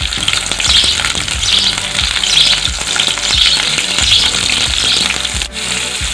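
Capsicum (green bell pepper) pieces sizzling in hot oil in a nonstick kadai, stirred with a wooden spatula. The sizzle swells in regular pulses, a little faster than once a second, and drops out briefly near the end.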